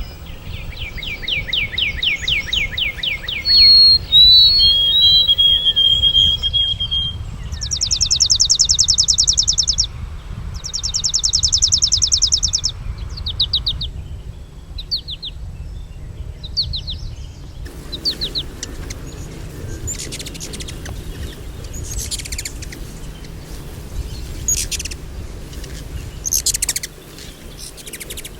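Songbirds singing: a fast trill, then clear whistled notes, then two bursts of rapid high trills, followed by scattered short high calls. A steady low rumble runs underneath, and the background changes abruptly a few times.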